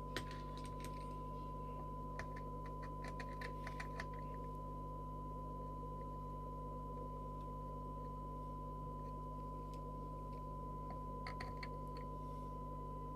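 A steady 1 kHz test tone from the AKD 4001 4-metre FM radio's speaker, demodulated from a signal generator's modulated carrier during a SINAD sensitivity measurement, over a low steady hum. A run of light clicks, like buttons or keys being pressed, comes in the first four seconds and again briefly near the end.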